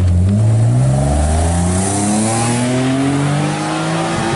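Car engine accelerating hard as the car pulls away, its pitch rising steadily through one long pull in a single gear.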